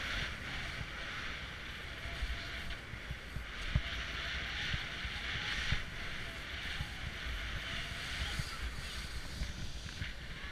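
Snowboard sliding and turning through soft snow: a steady hiss that swells and eases with the turns, over low wind rumble buffeting the microphone.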